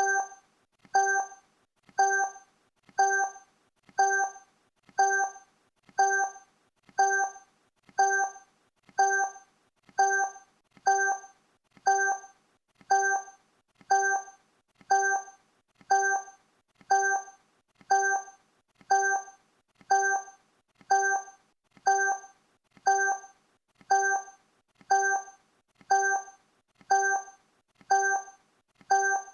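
Countdown timer sound effect: a short pitched electronic blip, struck once every second in an even, steady rhythm, each one fading quickly.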